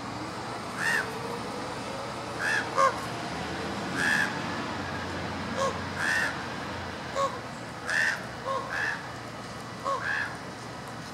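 Common ravens calling: a series of short caws, about one a second, higher arched notes mixed with shorter, lower ones.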